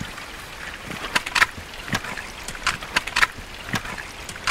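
Hiking boots stepping on loose wet rocks and trekking-pole tips striking the stones, an uneven run of sharp taps and crunches.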